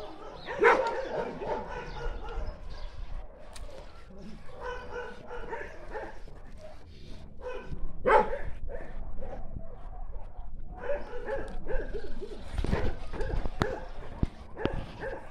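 Dogs barking on and off, in short repeated barks, the loudest just after the start and about eight seconds in.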